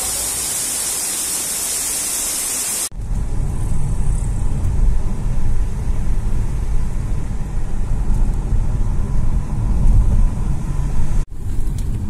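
Steady hiss of a cascading mountain waterfall for about three seconds, cut off abruptly by the low rumble of a car driving, heard from inside the cabin.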